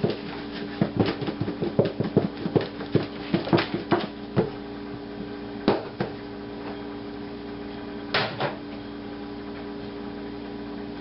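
Chicken pieces being shaken in a plastic container of flour: a rapid run of rattling knocks for about four and a half seconds, then two single knocks later on. A steady low hum runs underneath.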